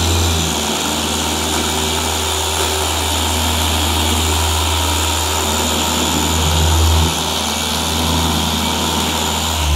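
Rupes LHR15 dual-action polisher running steadily as it works polish on a car bonnet: a loud, even motor hum with a whirring hiss above it.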